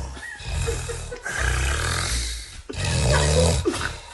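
A person snoring: three long, rattling snores of about a second each, with short breaks between them.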